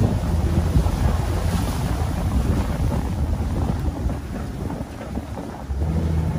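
Open-sided safari ride truck's engine running with road noise as it drives over a dirt track, and wind buffeting the microphone. The engine hum eases for about a second around five seconds in, then picks up again.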